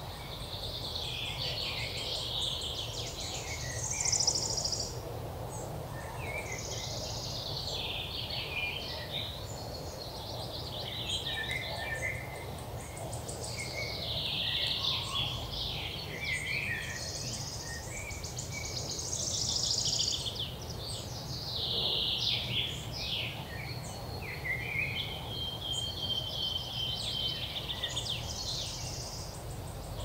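Several songbirds singing in overlapping chirps and rapid trills, over a steady low background rumble.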